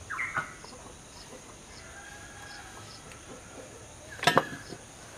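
Faint bird calls in the background: short chirps and clucks over a quiet room tone, with one short, sharp sound about four seconds in.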